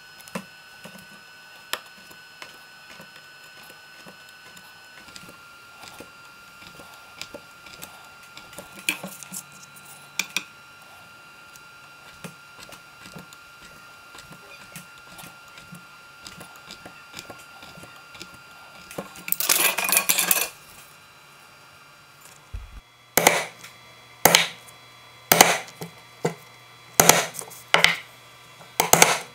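Small clicks and scratches of a steel awl and ruler being worked on an ash board, with a short scratchy rush about two-thirds of the way through. Near the end come sharp taps about once a second as the awl point marks a row of dots into the wood through a template.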